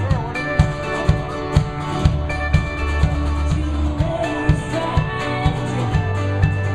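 A live folk-pop band playing with a steady beat: strummed acoustic guitar, a small strummed string instrument, cello and electric guitar, with a woman singing in parts.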